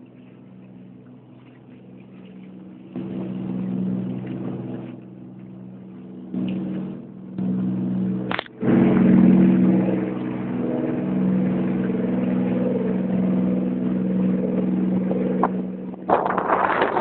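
Boat engine running steadily, with a rushing noise of wind and water that grows louder about three seconds in and again after a short break about eight seconds in.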